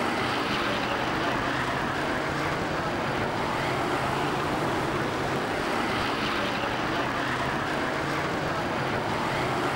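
Engines of a pack of winged stock cars racing round the track, a loud, steady, unbroken din.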